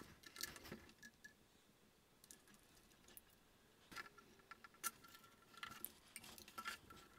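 Near silence broken by faint scattered clicks and taps from hands handling 3D-printed plastic robot-arm parts and seating embedded nuts in their slots. The sharpest click comes just before five seconds in, and a cluster of small taps follows.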